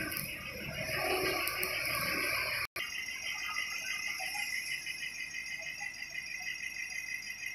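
Mitsubishi L300 ambulance engine idling with a low rumble under a steady high jingling tinkle. The engine sound cuts out abruptly about two and a half seconds in, leaving only the tinkle.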